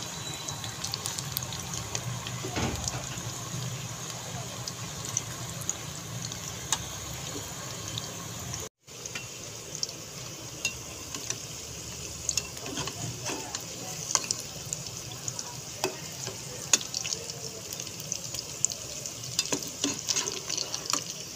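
Potato-and-onion pakoras deep-frying in hot oil in a pot: a steady sizzle full of small pops and crackles, with a spoon stirring and turning them in the oil.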